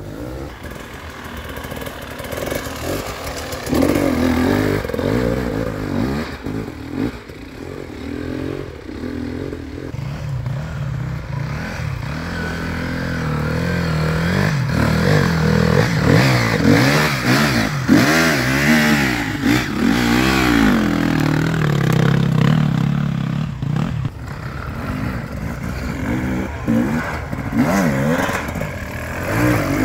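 Enduro dirt bike engines revving up and down with the throttle as the bikes pick their way one after another along a rough, muddy track, with clatter from the bikes over the ground. The engine note gets louder and stays close from about halfway through.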